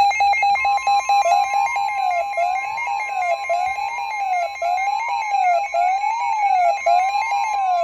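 Emergency alert tones sounding together as a new weather warning begins: a steady high alert tone comes in about half a second in over a rapidly pulsing lower tone, and a warbling tone rising and falling about once a second joins it.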